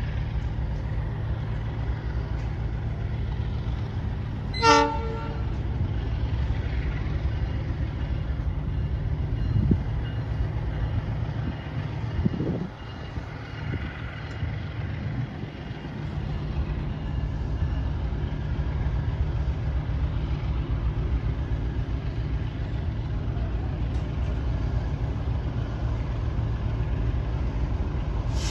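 Diesel-electric freight locomotive engine running with a steady low rumble. About five seconds in comes one short horn toot.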